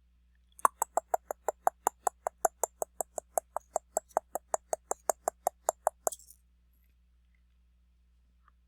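A rapid, even run of sharp mechanical clicks, about five a second, starting about half a second in and stopping suddenly some five seconds later.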